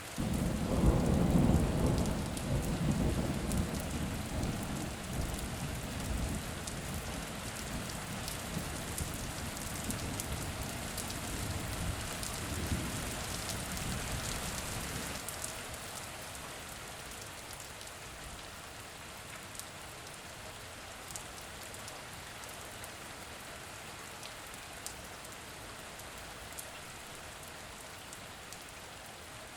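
Steady rain falling, with a roll of thunder that breaks suddenly right at the start, loudest in the first couple of seconds, and rumbles on for about fifteen seconds before fading out, leaving the rain alone.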